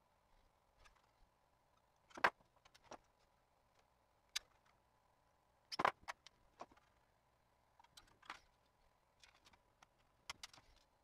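Hand tin snips cutting the corner reliefs out of thin sheet metal: a scatter of sharp snips and clicks, the loudest about two seconds and six seconds in, along with light metallic rattles as the sheet is turned and handled.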